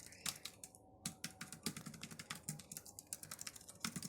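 Typing on a Logitech K380 wireless keyboard: a quick, irregular run of soft key clicks, the keystrokes not completely silent but not very noisy either.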